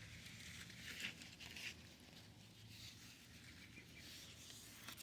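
Quiet outdoor background with two brief soft rustling sounds, about one second and one and a half seconds in.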